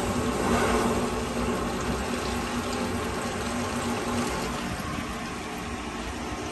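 Water gushing out of a cleared drain pipe and splashing down into the drain pit, with a steady hum underneath. The free flow is the sign that the drain-cleaning cable has opened the blockage.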